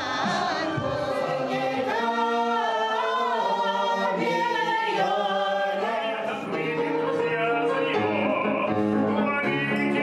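A group of voices singing a song together, choir-style, with long held notes.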